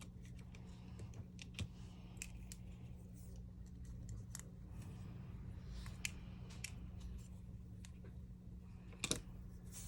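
Scattered light clicks and taps of small repair tools working on a smartphone, with two sharper clicks, one early and one near the end, over a steady low hum.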